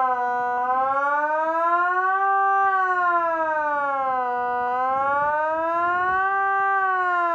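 Kockum Sonics ET 30/3 electronic civil-defence siren sounding the Swiss "general alarm" signal: a loud tone gliding steadily up and down, about four seconds per rise and fall, twice dipping to its lowest pitch.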